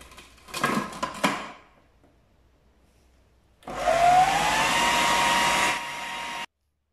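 Electric food processor motor starting a little over halfway through, its whine rising in pitch as it spins up and then holding steady while it mixes cake batter of creamed butter, sugar, eggs and vanilla essence. It cuts off suddenly near the end.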